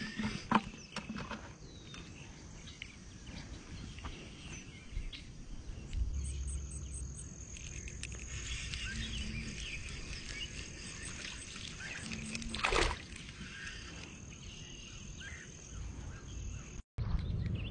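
Quiet outdoor ambience: a steady high insect tone sets in about six seconds in, with scattered faint bird chirps, and light clicks and rustles from a spinning rod and reel being handled.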